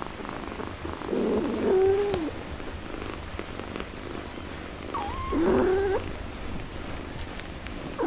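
Mother cat purring steadily while she nurses her newborn kittens. Two wavering mews cut through the purr, one about a second in and one about five seconds in.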